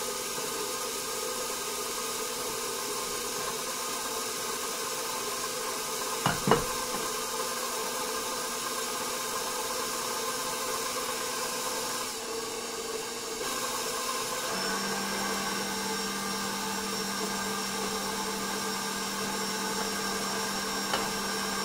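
Electric stand mixer running steadily with its dough hook turning as flour is worked into a wet dough. Two sharp knocks come about six seconds in, and the motor's hum changes note about two-thirds of the way through.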